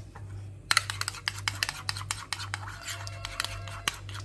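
A metal fork stirring ketchup and mayonnaise in a ceramic bowl, clinking rapidly against the bowl from about a second in, over a steady low hum.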